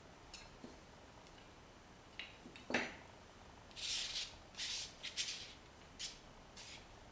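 Metal palette knives clicking and knocking as they are set down on the table, the loudest knock nearly three seconds in. Then a palette knife scrapes gesso across paper in several short strokes.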